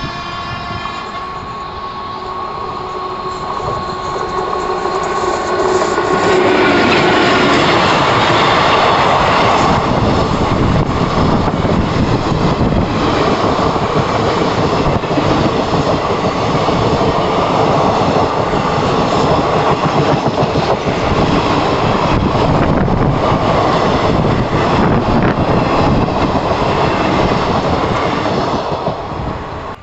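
Indian Railways express train of ICF passenger coaches passing close by at speed. A steady pitched tone in the first few seconds gives way to the rising rumble of wheels on the rails, then the coaches clatter and rattle past at full loudness. The sound drops off suddenly just before the end.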